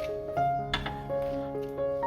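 Background music: a slow melody of held notes changing one after another.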